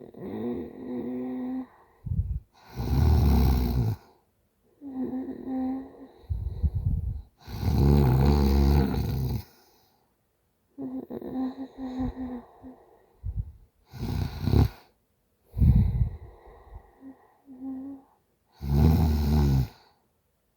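A woman snoring in a drunken sleep: about five loud, rough snores a few seconds apart, the longest about two seconds, with softer moaning breaths held on a steady pitch in between.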